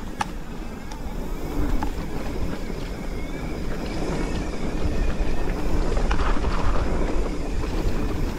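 Wind rushing over the camera microphone and mountain bike tyres rolling on a dirt trail, with scattered clicks and rattles from the bike; the rush grows louder about halfway through.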